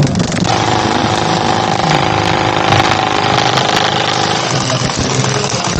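A motor vehicle's engine running steadily under a broad hiss, with a steady whine that sets in about half a second in and fades out about four and a half seconds in.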